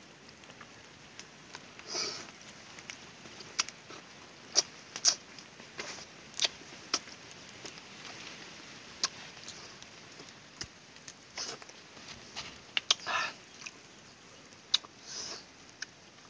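Eating eel with wooden chopsticks: chewing and lip-smacking, with scattered sharp clicks of the chopsticks against a ceramic plate.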